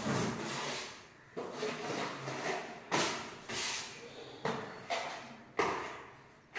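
Steel putty blade scraping wall putty across a wall in a second coat: a series of about five scraping strokes, each starting sharply and fading away.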